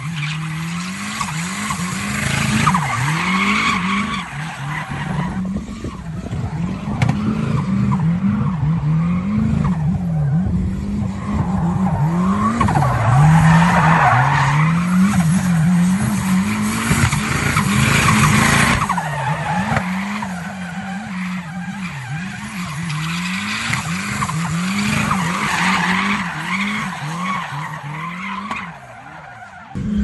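Turbocharged Chevrolet Chevette drifting, its engine revving up and down over and over as the throttle is worked, with its smoking rear tyres squealing loudest through the middle stretch.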